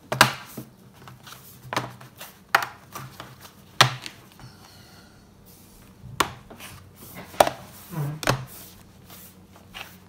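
The bottom cover of an HP Envy 17 laptop being pressed down around its edges, its clips snapping into place with a series of sharp clicks, about seven or eight, irregularly spaced: the sign that the cover is seating.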